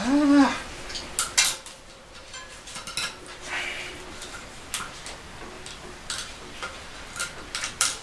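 Metal tools clinking against a bicycle's rear cassette: a chain whip and a lockring tool being handled and fitted onto the sprockets to take the cassette off for cleaning. Scattered sharp clicks, a dozen or so, irregularly spaced.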